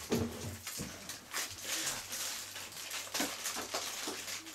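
A toddler's brief wordless cooing sound near the start, then light clicking and rustling as small plastic toy pieces are handled on a table.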